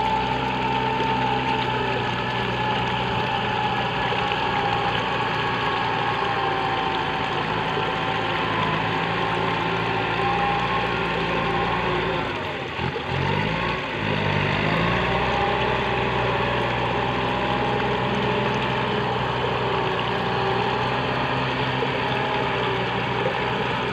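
Tractor diesel engine running steadily under load, pulling a disc harrow through a flooded rice paddy. Its note dips and wavers briefly about halfway through, then steadies again.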